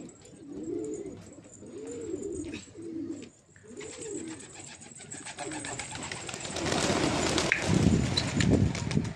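Domestic pigeons cooing, each coo rising and falling in pitch, about one a second. From about six seconds in, the flock takes off in a burst of flapping wings that is loudest near the end.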